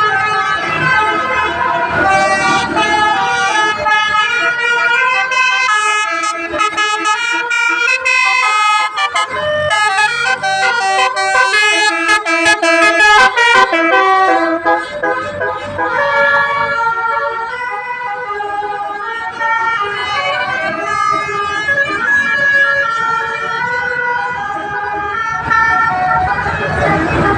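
Bus basuri musical air horn playing a melody: a long run of held and quick-changing horn notes stepping up and down in pitch, busiest and loudest about halfway through.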